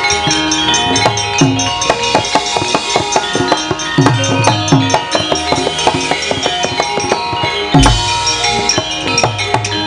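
Javanese gamelan playing an instrumental passage: metal-keyed instruments ring steady notes over drum strokes that drop in pitch. One deep stroke, the loudest, comes near the end.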